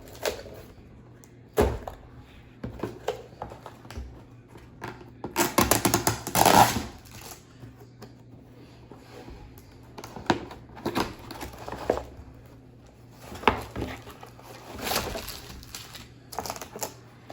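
Packaging and small objects handled on a table: scattered clicks and knocks, with a louder crinkly rustle of packets or a box about five to seven seconds in and again near the end.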